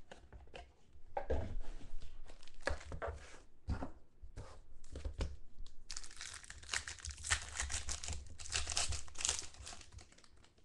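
Foil trading-card packs handled and torn open by hand: scattered rustles and taps at first, then dense crinkling and tearing of the foil wrapper from about six seconds in.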